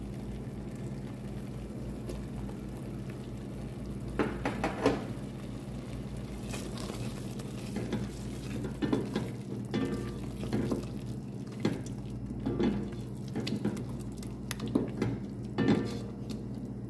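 A wooden spoon stirring a thick onion and tomato sauce in a metal pot, with a scrape or knock against the pot every second or two, over a steady low hum.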